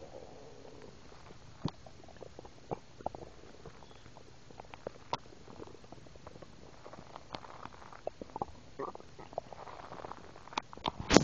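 Stomach and gut gurgling after drinking milk: irregular small pops and squelches with stretches of bubbling rumble, and a louder gurgle just before the end.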